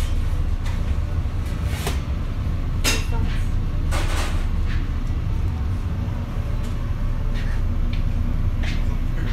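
Commercial kitchen background: a steady low rumble with a few short clicks and knocks, the loudest about three and four seconds in.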